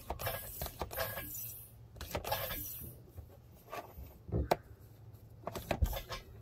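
Irregular rubbing, shuffling and clicking as a rubber hose and a hand-operated vacuum oil-extraction pump are handled.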